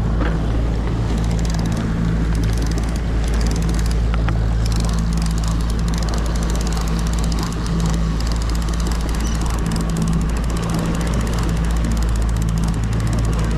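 Fishing boat's engine running steadily at trolling speed, a low drone, under a constant rush of wind and water.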